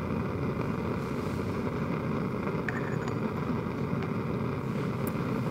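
Bunsen burner flame burning under a crucible, a steady rushing noise, with a faint click or two.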